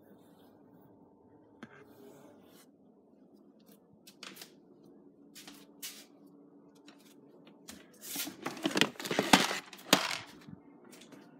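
Rummaging among containers on pantry shelves: scattered light knocks and clicks, then, about eight seconds in, a louder stretch of rustling and scraping lasting about two seconds as a plastic tub is taken off the shelf.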